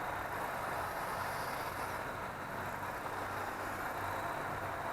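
Steady low background hum and hiss, with no distinct knocks, clicks or tool sounds.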